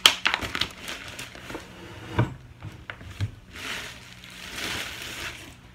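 Plastic grocery bags rustling and crinkling as packs of meat are unpacked. A couple of knocks about two and three seconds in, as plastic meat trays are set down on the counter.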